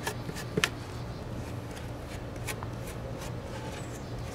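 Small trowel scraping and tapping against a styrofoam surface as lightweight spackle is spread on it: scattered soft scrapes and short clicks, one louder about half a second in, over a steady low hum.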